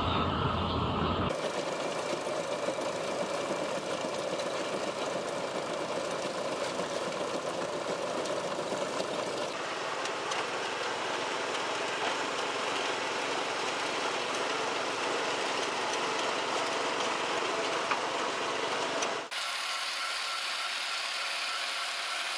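Farm machinery working in the field, in several short clips cut together: a steady mechanical running noise with rattle. It changes abruptly about a second in and again near ten seconds in. Near the end it turns thinner and higher-pitched.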